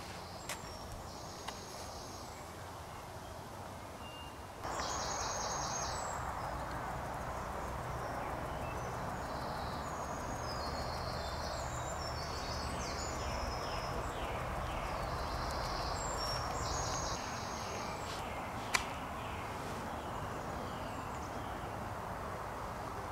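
Outdoor ambience of small birds singing in repeated short trilling phrases over a steady rush of background noise that grows louder a few seconds in, with one sharp click near the end.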